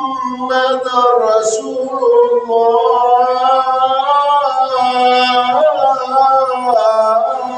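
A man's voice chanting melodically, holding long notes that glide and waver, in the manner of Arabic Quran recitation within a Friday sermon.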